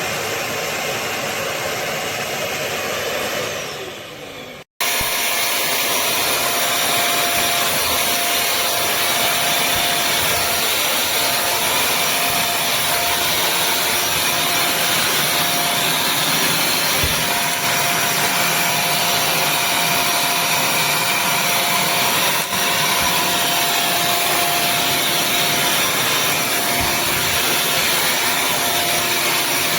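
Bissell CrossWave HydroSteam wet-dry vacuum running with a steady motor hum. About four seconds in, the motor winds down with a falling whine and stops briefly, then it runs again steadily with a constant whine over the brush-roll noise.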